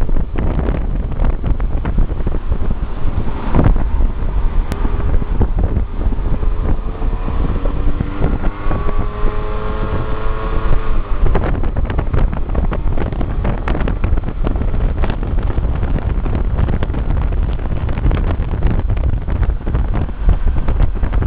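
Heavy wind buffeting the microphone of a moving scooter, over the scooter's engine. The engine note climbs steadily from about six seconds in, then drops away suddenly around eleven seconds.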